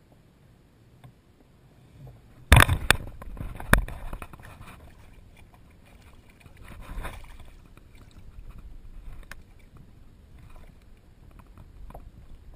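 Water splashing and sharp knocks beside a kayak as a hooked pollack is brought up and thrashes at the surface. The loudest knocks and splashes come about two and a half seconds in, with a smaller burst of splashing around seven seconds.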